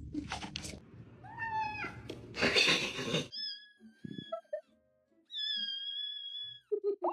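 A cat meowing: a short rising-and-falling meow, a brief noisy burst, then two long, level, high-pitched calls held for over a second each.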